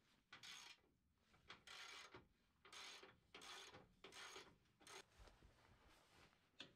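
1/2-inch drive socket ratchet clicking in repeated short runs of rapid pawl clicks, one run per swing of the handle, as skid plate bolts are backed out.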